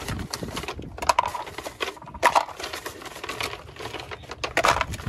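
Things being handled and moved about: irregular knocks, clatter and scraping, with several sharper knocks about a second, two seconds and four and a half seconds in.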